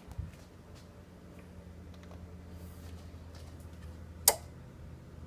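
A steady low hum with faint ticks and rustles of handling, and one sharp click about four seconds in.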